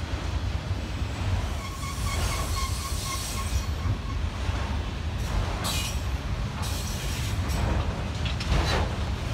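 Freight train of enclosed autorack cars rolling past with a steady rumble of wheels on rail. A thin wheel squeal rings from about two seconds in until nearly four seconds, and there are brief high squeals again later.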